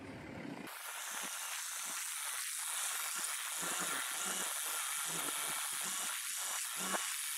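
Carelift ZoomBoom telescoping forklift running while it pushes a stack of hay bales into a dry van trailer, heard as a steady hiss with a faint low hum underneath and one brief click near the end.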